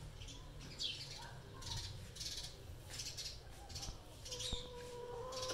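Birds chirping: a series of short, high chirps about every half second, with one held, steady-pitched call lasting about a second near the end.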